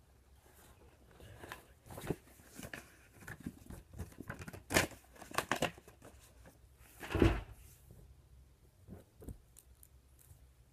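Handling noise close to the microphone as a book is moved about against it: a run of rustles, scrapes and knocks. The loudest knocks come about five seconds in and again about seven seconds in, and it quietens near the end.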